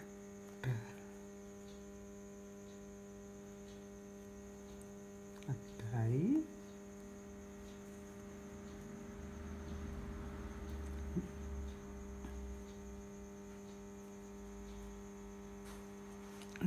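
Steady electrical hum with several even overtones, broken by two brief murmured words, about one second and six seconds in.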